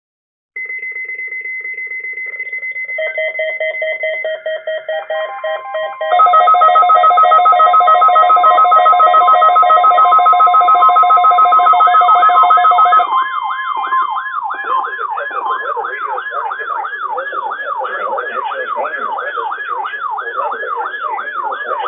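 Electronic alert tones: a steady high beep, joined by more layered tones that turn to loud pulsing beeps, then about halfway through give way to a rapid up-and-down siren wail.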